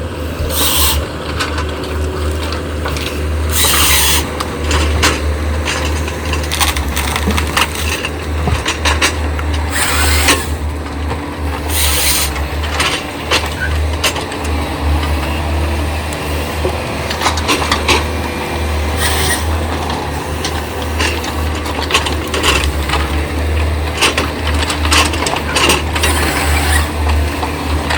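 Excavator diesel engine running steadily under load, with repeated knocks and cracks of timber being gripped and moved; the sharpest come about four, ten and twelve seconds in.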